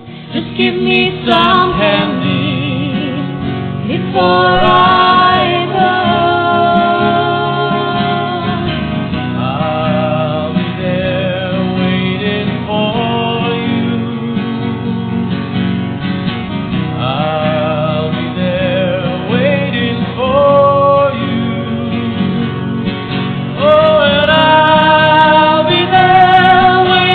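Music: a solo voice singing a slow song over guitar accompaniment.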